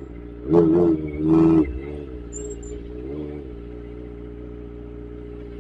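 Kawasaki ZX-25R's four-cylinder engine running steadily at idle, with two short louder sounds in the first two seconds.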